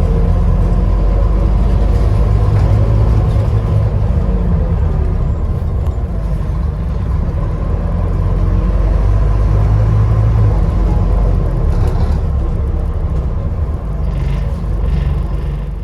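Scania Enviro 400 double-decker bus's diesel engine running under way, heard from inside the lower deck, with a steady rumble and a thin, steady turbo whistle over it. A few light rattles come in near the end.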